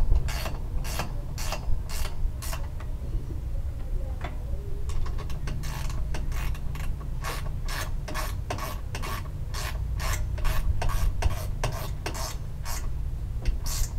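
Hand ratchet wrench being swung back and forth to turn bolts, a short rasping click-run with each stroke, about two or three strokes a second. The strokes pause about three seconds in and then start again.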